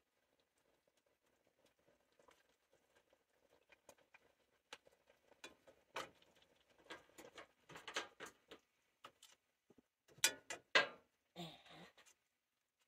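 Metal spatula scraping and clinking against a frying pan while serving sauce onto a plate: a run of light clicks and scrapes that grows busier, with the loudest clatters about ten seconds in.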